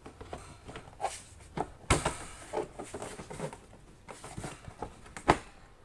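Plastic clicks and knocks as a Maxxair MaxxShade fan cover is pushed up and snapped into its ceiling flange: a series of separate sharp taps, the loudest about two seconds in and another just after five seconds.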